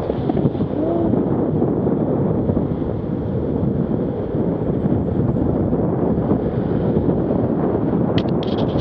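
Wind buffeting the microphone of a head-mounted camera moving at speed, a steady rumbling roar, with a few short sharp clicks near the end.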